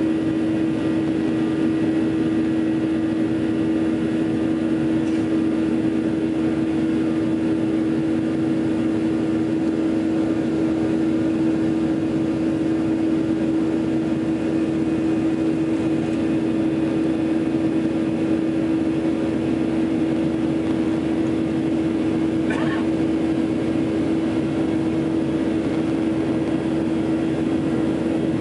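Jet airliner cabin beside the wing engine during the climb after takeoff: the turbofan engines' steady drone, with a strong low hum over rushing airflow noise.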